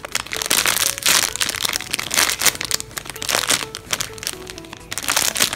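A clear plastic bag crinkling in irregular bursts as a foam squishy toy inside it is handled and squeezed, with faint music underneath.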